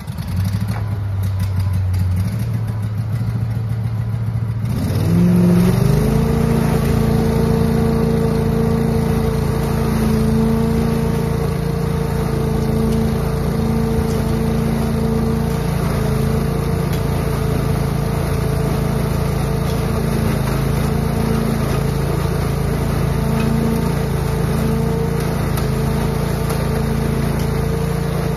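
Billy Goat truck-loader leaf vacuum's gas engine starting and idling low, then throttled up about five seconds in to its working speed and running steadily at a higher pitch.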